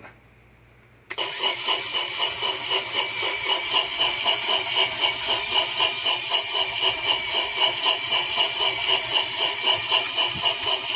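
Trackmaster remote-control toy steam engines starting to run, a steady mechanical running sound with quick, evenly spaced chuffing pulses that starts suddenly about a second in.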